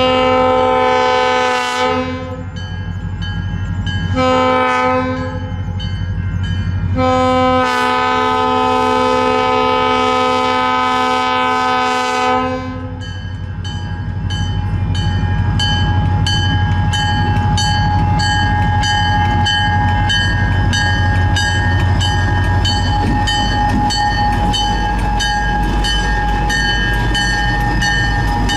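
Diesel locomotive horn sounding for a grade crossing: a long blast ending about two seconds in, a short one around four seconds, and a long one from about seven to twelve seconds. After that, the locomotives' diesel engines rumble as they roll slowly past, with a crossing bell dinging about twice a second.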